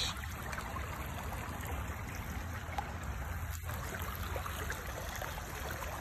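Shallow, rocky creek water trickling and running steadily.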